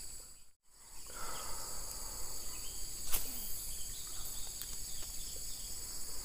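Steady high-pitched insect chorus of crickets or cicadas shrilling on several pitches at once. The sound drops out briefly just under a second in, and there is one sharp click about three seconds in.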